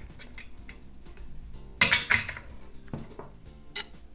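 Metal tools clinking as a socket is fitted over a reinstalled spark plug and a flat steel spark plug wrench is handled. There are faint small ticks at first, then a few sharp clinks about halfway through and near the end.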